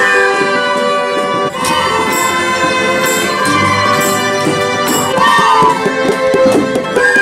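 A small student ensemble playing an action-style arrangement: sustained keyboard chords with violin, acoustic guitar and bongos.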